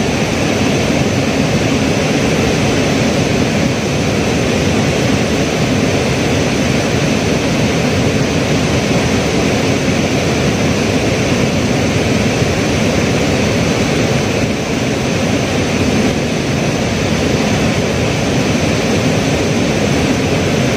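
Steady, loud rush of a swollen, fast-flowing river in flood after heavy rain.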